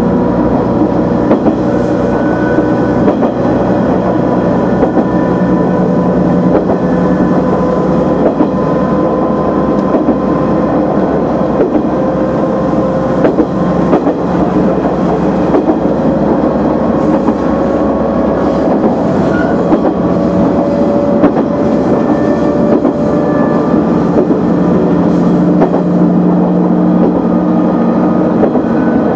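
KiHa 100 diesel railcar running along the track, heard from inside the car: a steady diesel engine note that drifts slowly with speed, over rail noise with scattered clicks of the wheels on the rails.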